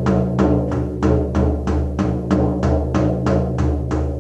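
Shamanic hand drum beaten at a steady, even pace of about three strokes a second, each stroke ringing on with a deep hum. This is the steady journeying beat of a drum meditation, not the slow signal beats or the rapid callback.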